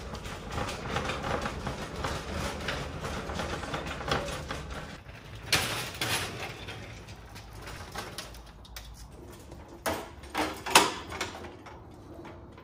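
A garage door running on its opener, then a steel welding table and cart rolled out over concrete with several sharp metal clanks, the loudest near the end.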